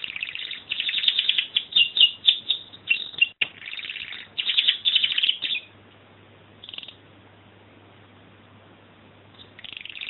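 Domestic canary singing: a dense run of rapid trills and chirps for about five and a half seconds, then a single short note a second later and another brief burst near the end.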